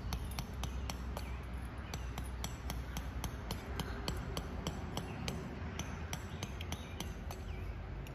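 Tent poles clicking and clinking as the sections are handled and fitted together: a run of light, sharp taps, several a second, over a low steady rumble.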